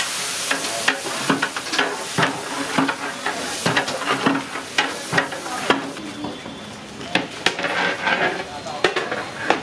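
A long metal ladle stirring and scraping through a large metal pot of mutton biryani masala on a wood fire, knocking against the pot again and again. Under it the cooking liquid sizzles, loudest in the first half and fading about halfway through.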